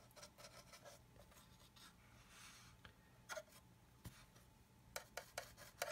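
Faint scratching and small clicks of a paintbrush working on a plastic scale model and the model being handled, with a few sharper clicks near the end.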